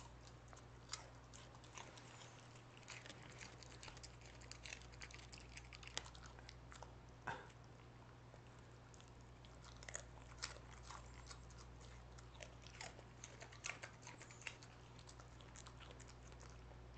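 A Cardigan Welsh corgi chewing a piece of broccoli: faint, irregular crunching clicks, with a few louder crunches now and then, over a steady low hum.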